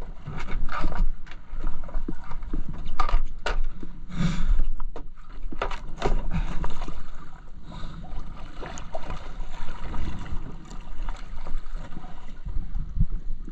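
Wind buffeting the microphone and water slapping against a fibreglass boat hull, with repeated knocks and clunks from the fish-box lid and from moving about the deck.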